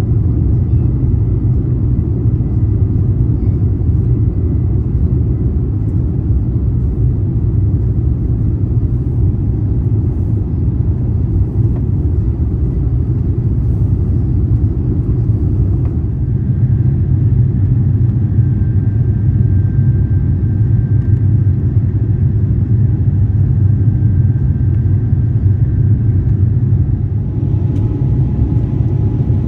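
Steady low rumble heard inside the cabin of an Airbus A350-900 airliner, the even drone of engines and airflow.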